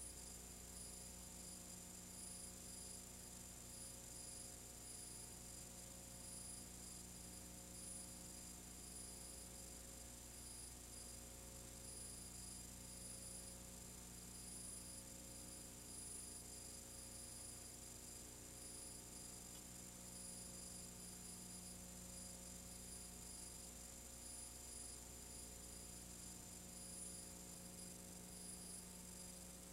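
Faint, steady mains hum with a thin high whine and hiss, the noise floor of a silent film's tape transfer; no sound of the work itself is heard.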